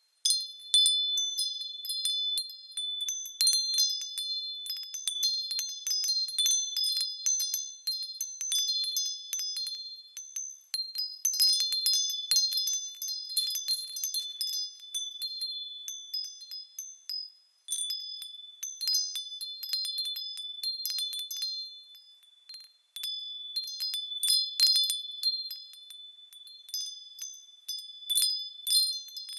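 Small high-pitched bells being moved, ringing in frequent overlapping strikes with clear sustained tones. The ringing briefly dies down twice, a little past the middle and again later.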